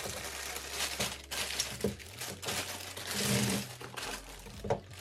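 Clear plastic bag crinkling and rustling irregularly as a tripod wrapped in it is handled and slid out.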